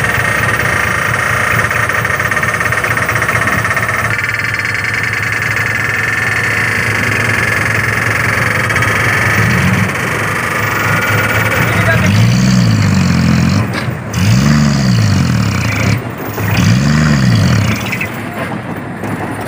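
Diesel dump truck engine running while the raised tipper body is lowered, with a steady high whine. Past the middle, the engine revs up and falls back three times in a row as the truck strains to pull through soft fill dirt.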